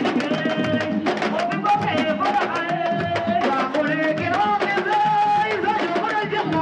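A woman singing into a microphone over steady drumming, with long held notes that glide between pitches.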